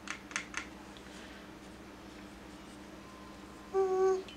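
A few light clicks of a paintbrush tapping and dabbing in the plastic half pans of a watercolour box, then a quiet stretch; near the end a short hummed 'mm' from the painter.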